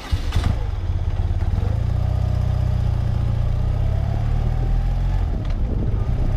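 BMW R100RS air-cooled boxer-twin engine running steadily, coming in sharply just after the start.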